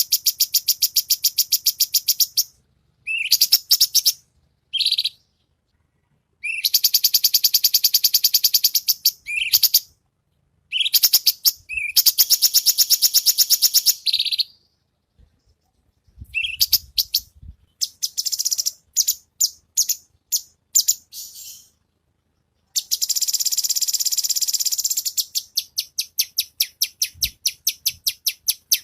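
Cucak cungkok singing in long, very rapid trills of high-pitched notes, each lasting a second or few. Short pauses and a few short single calls break up the trills.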